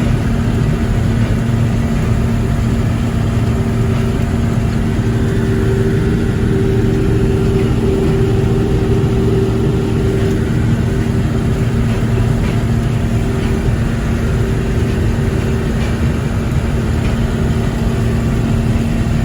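Farm machinery engine running steadily at a constant speed, a loud, even drone with no change in pitch.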